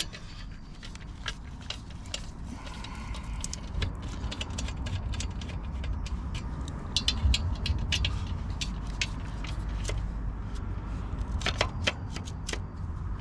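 Scattered light metallic clicks and clinks of hand tools and bolts being handled while a clutch is fitted and aligned on the flywheel, over a steady low rumble.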